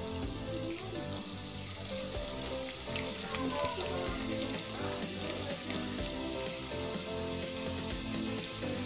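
Chopped onions and curry leaves sizzling steadily in hot oil in a nonstick frying pan, with background music underneath.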